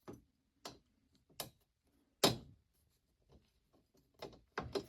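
Screwdriver working a stubborn screw loose on an AC unit's panel: a series of irregular sharp clicks and taps, metal on metal, the loudest a little past two seconds in.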